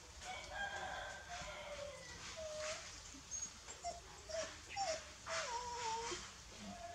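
Newborn puppies squeaking and whining while they nurse: a string of short, high squeaks, several sliding down in pitch.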